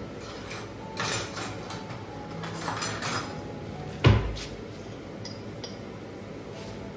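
Cutlery rattling in an open kitchen drawer, then the drawer pushed shut with a single loud knock about four seconds in. A few light clinks of a fork against a glass dish follow.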